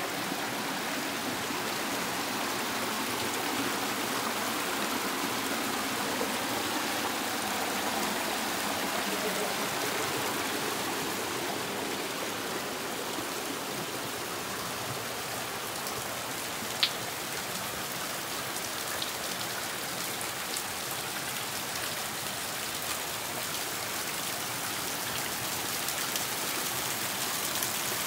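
A small gorge stream running over rocks, giving way to a finer patter of water trickling and dripping from a mossy rock overhang about a third of the way in. One sharp click about two-thirds of the way through.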